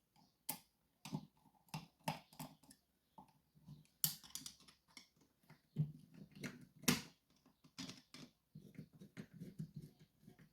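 Irregular light clicks and taps of small metal parts as a Sargent & Greenleaf 6804 lever safe lock is taken apart, with two sharper clicks about four and seven seconds in.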